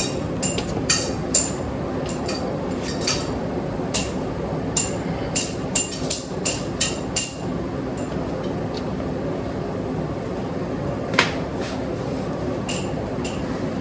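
Sharp metallic clinks and taps with a short ring: several spaced out, then a quick run of about six in the middle and one more later on, as metal parts are worked while the oil pickup tube is pushed into the motorcycle's engine case. A steady hum runs underneath.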